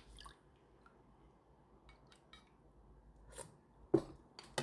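A stainless-steel spoon tapping and scraping lightly against a stainless mixing bowl of radish water-kimchi brine: a few faint scattered clinks, with a sharper clink about four seconds in.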